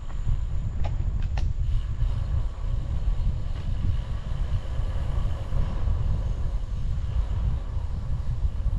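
Wind buffeting the microphone of a bicycle-mounted camera on a fast downhill ride: a loud, ragged low rumble, with a couple of short clicks about a second in.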